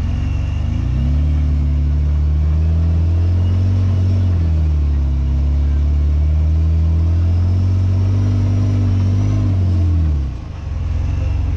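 Rock-crawling Jeep's engine revving and held under load as it climbs a steep rock ledge. The revs sag briefly about halfway through, rise and hold again, then drop off near the end before picking back up.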